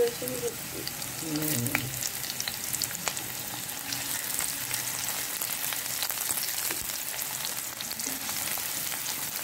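Sliced onion and garlic sizzling and crackling in hot oil in a nonstick pot, stirred now and then with a silicone spatula.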